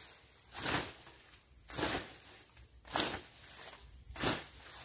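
Hand hoe chopping and scraping weeds out of soil, four regular strokes about one every second and a quarter.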